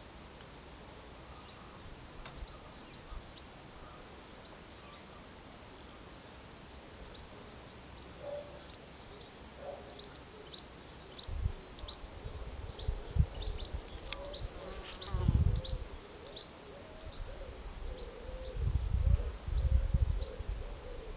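Barn swallows calling as they hunt overhead: short, high, downward-sweeping chirps that come thickest about halfway through. A wavering buzz runs through the second half, and low rumbling bursts on the microphone are the loudest sounds.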